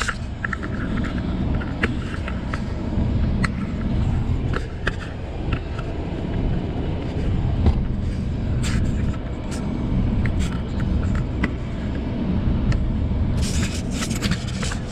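A vehicle running with a steady low rumble, with scattered clicks and rattles over it.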